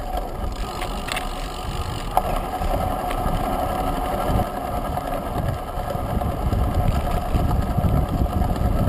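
Wind buffeting the microphone of a camera on a moving road bike, with a steady hum from the rolling bike and a couple of sharp clicks in the first few seconds.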